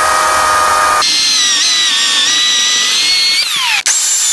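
Titan TTL758CHN 2000 W corded electric chainsaw running at full speed and cutting through a log, with a steady high motor whine whose note changes about a second in. Near the end the pitch falls, the sound cuts out for a moment, and then the whine comes back up to speed.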